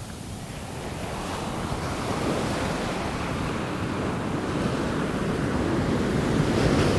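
Pacific surf breaking and washing up a sand beach, a steady rushing wash that grows louder over the few seconds, with wind rumbling on the microphone.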